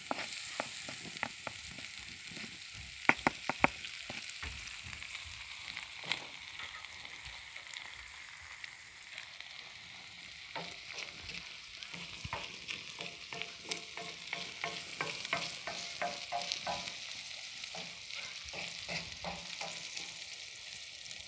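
Meat, onions and diced potatoes sizzling steadily in a saj pan over wood embers, with a wooden spoon stirring and scraping through them. A few sharp knocks about three seconds in are the loudest moments.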